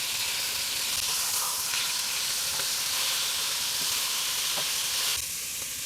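Meat searing in hot oil in a pot: a steady frying sizzle with a few faint pops, easing off a little near the end.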